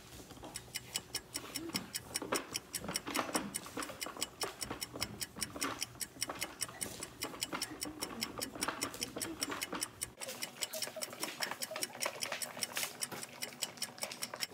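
Hand-cranked plastic mixer of a So Slime DIY slime kit clicking rapidly and evenly, several clicks a second, as its handle is turned to mix the slime powder and water.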